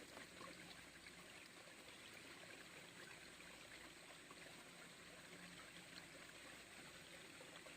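Faint, steady babble of a small river's flowing water.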